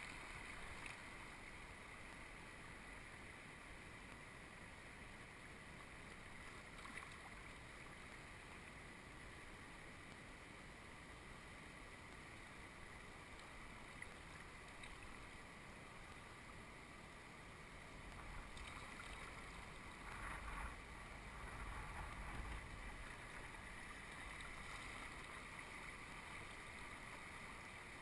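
Faint steady rush of river water heard from a kayak running a small falls and its rapids, with a louder, rougher stretch of water noise about two-thirds of the way through.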